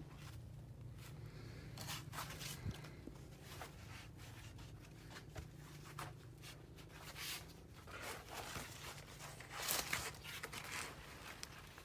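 Irregular rustling and crunching strokes, loudest about ten seconds in, over a faint low hum.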